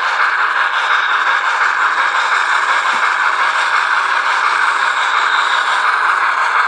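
Sound-equipped H0 model of the Br 96 Mallet steam locomotive: its small loudspeaker plays steam-engine running sound as a steady, hissing rush, with the model running on the track.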